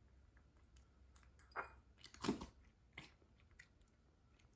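Cat crunching dry kibble: a few sharp crunches in the middle, the loudest just after two seconds in.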